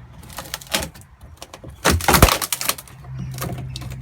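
A shovel and loose timber being handled in a boat being stripped out: a series of knocks and scrapes, with one loud clatter about two seconds in.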